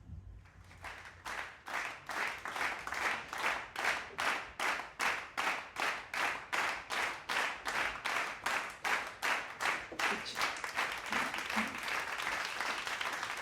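Rhythmic clapping, about three claps a second, that swells into a continuous burst of applause about ten seconds in.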